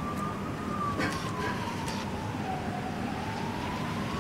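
Distant siren wailing, its single tone slowly rising and falling, over a steady rush of wind from the blizzard.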